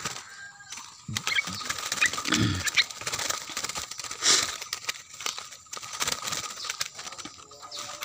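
Small birds fluttering and scrabbling in a wire-mesh cage, with scattered rustles and clicks as the cage is handled and a few short chirps.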